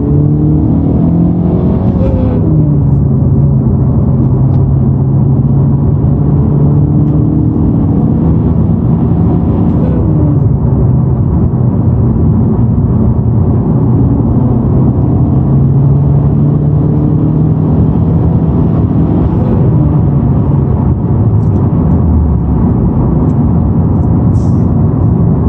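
Honda Civic Type R running with a loud, steady low buzz, the buzzing that comes with the clutch pedal depressed. The pitch shifts briefly a couple of times.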